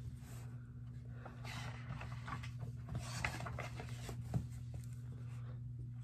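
Faint rustling and rubbing of a hardcover picture book being handled, with a soft knock about four seconds in, over a low steady hum.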